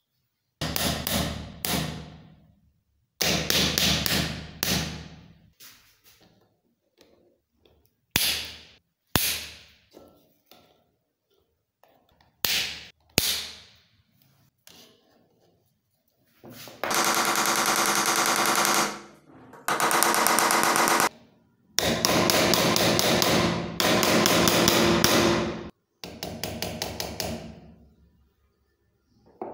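Hammer tapping steel pins through a stack of metal plates held in a bench vise, setting the pins flush, in short bursts of quick metallic strikes. In the second half come longer stretches of rapid, closely spaced strokes, each lasting two to four seconds.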